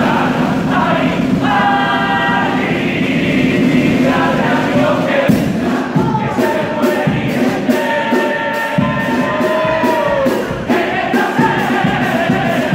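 A male chorus singing a Cádiz-carnival pasodoble in unison, with long held notes. About five seconds in, a drum joins with evenly spaced strokes.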